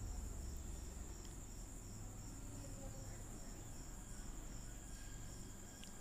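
Faint high-pitched insect chirping: a steady trill with a short pulse repeating about three times a second.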